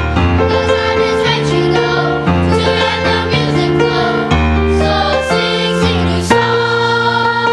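Children's choir singing with instrumental accompaniment, held notes moving from one to the next about every second.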